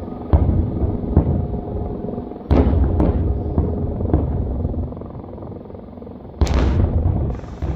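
Aerial fireworks shells bursting: a series of booms and cracks, each trailing off in a rolling rumble, with the loudest about two and a half seconds in and near the end.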